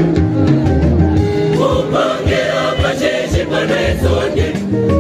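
A large choir singing in parts to an amplified band accompaniment of drum kit and keyboard, heard through loudspeakers. The voices come in stronger about a second and a half in.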